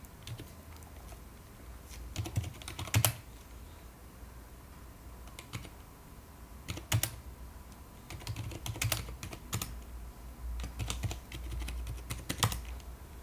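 Typing on a computer keyboard: separate keystrokes in short, irregular bursts with pauses between them, one sharper keystroke about three seconds in.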